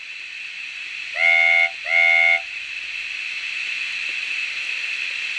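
Steam-locomotive sound effects played by an ESU LokSound DCC sound decoder through a model engine's small speaker: two short whistle toots in quick succession, about half a second each, over a steady steam hiss.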